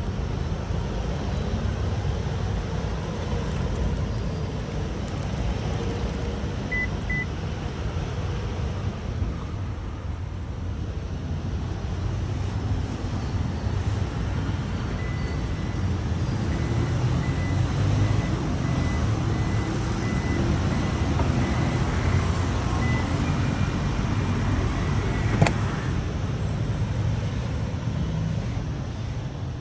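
Steady low rumble of vehicle traffic. Two short high beeps come about seven seconds in, a long run of faint, evenly spaced beeps follows in the second half, and there is one sharp click near the end.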